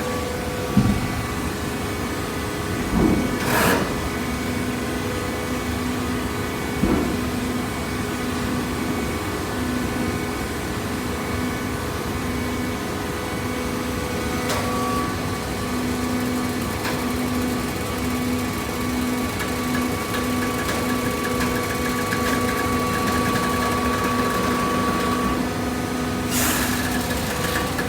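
Waste paper box baler with conveyor running: a steady machine hum with a low tone that pulses. A few clunks come in the first seven seconds, and brief rushes of noise come about four seconds in, about halfway, and near the end.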